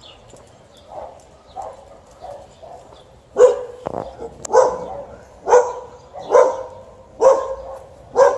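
Dogs barking angrily: fainter barks at first, then a run of six loud barks about a second apart, starting a few seconds in.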